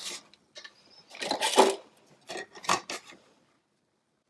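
Plastic ruler and set square being put down and picked up on a cutting mat, with a sheet of greyboard shifted, making a few short clatters and scrapes; the loudest comes about a second and a half in.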